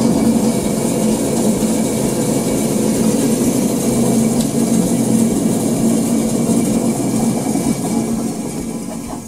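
Three-phase band saw running steadily on a variable frequency drive, a constant motor hum with the blade turning, then slowing down near the end as it is stopped. The blade is running in reverse because the motor's phase order is wrong.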